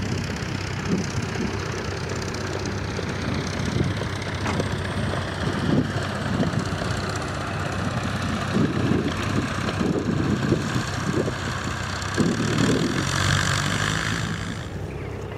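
De Havilland Tiger Moth biplane's Gipsy Major engine droning steadily in flight, with heavy wind buffeting on the microphone. The engine sound changes abruptly near the end.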